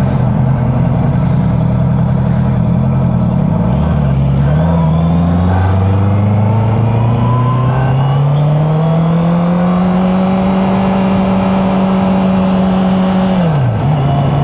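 Honda CB650F inline-four engine running under way. The engine note drops sharply about four seconds in, then climbs steadily and holds, and falls again near the end.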